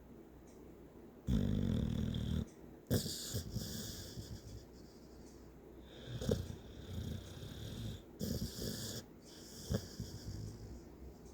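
Snoring: a loud, rattling snore about a second in, then several more noisy breaths with a hiss, some starting with a sharp catch.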